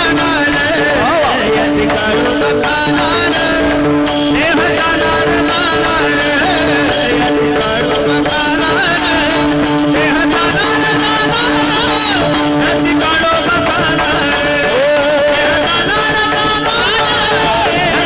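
A male kirtan singer sings a devotional melody into a microphone over live accompaniment: a steady held drone that drops out about thirteen seconds in, and rhythmic percussion clicks.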